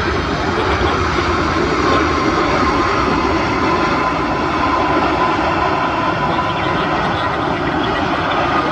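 Boeing 777-300ER's GE90 turbofan engines in reverse thrust as the airliner rolls out after landing: a loud, steady rushing roar with a thin whining tone running through it.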